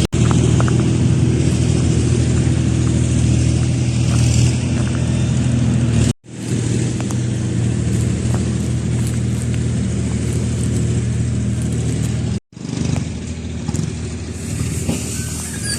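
A heavy engine running steadily close by, in a constant low hum, broken by two abrupt cuts; after the second cut the hum fades into quieter traffic noise.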